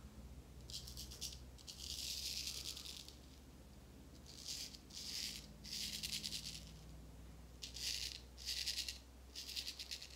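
Filarmonica 14 straight razor shaving lathered stubble on the neck and jaw in about eight short scraping strokes, each a dry crackling rasp as the whiskers are cut. The edge is sharp and cuts smoothly.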